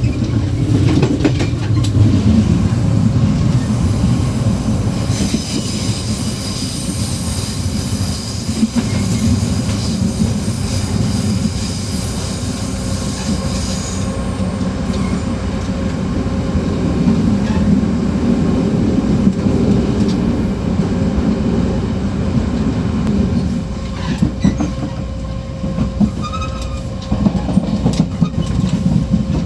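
Running sound at the gangway between two cars of a Pingxi Line diesel multiple unit: a steady low rumble and rattle of the coupled cars. A high-pitched squeal runs from about five to fourteen seconds in. Several sharp knocks come near the end.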